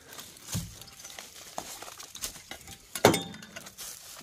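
Rustling and scattered small clicks and clinks of someone moving through dry brush and over junk, with a louder sharp knock about three seconds in.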